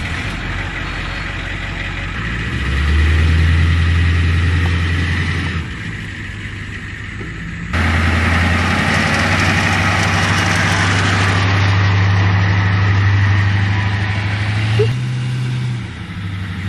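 Midi school bus engine running as the bus drives slowly across a grassy field: a steady low engine note that jumps abruptly in level and pitch a few times.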